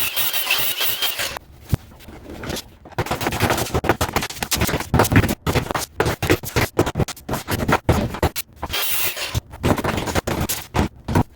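A power tool runs with a steady hiss and whine and stops about a second and a half in. Then comes a long run of rapid, irregular knocks and scraping: old masonry behind a shower wall being busted out by hand.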